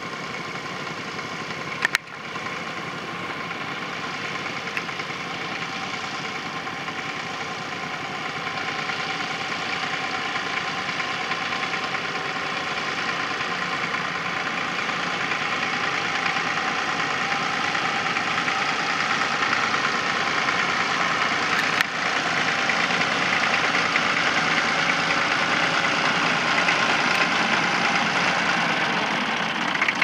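Fordson Dexta tractor's three-cylinder diesel engine running steadily under load while pulling a plough, growing gradually louder. A brief click about two seconds in and another near the last third.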